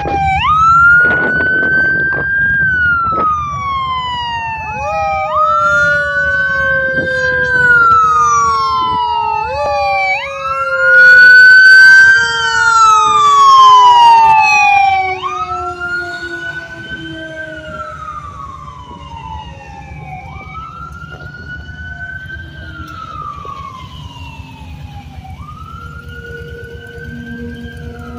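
Fire truck siren wailing on a Pierce aerial ladder truck as it responds: each sweep rises quickly and falls slowly, about every five seconds. It is loudest about halfway through as the truck passes, then fades as it drives off, over a low road rumble.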